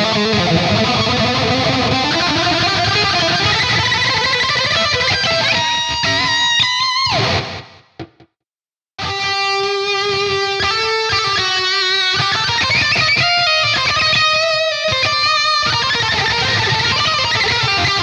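B.C. Rich Shredzilla seven-string electric guitar played on its DiMarzio bridge pickup: fast riffing, then a steep dive in pitch about seven seconds in that drops into a second of silence, before separate notes and riffs pick up again.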